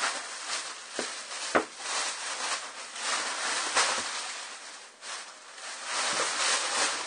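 Plastic shopping bag rustling as groceries are rummaged through and handled, with a few light knocks, the sharpest about a second and a second and a half in.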